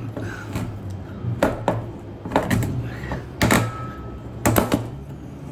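Sharp metallic clicks and knocks of a cheap hand-held can opener and a cut tin-can lid being worked, coming irregularly, often in pairs, over a low steady hum.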